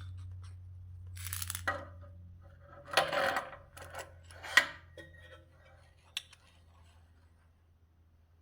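DeWalt DW758 bench grinder, fitted with a balancing flange, running with a steady low hum. Several sharp metallic clinks and rattles sound over it, the loudest about three and four and a half seconds in.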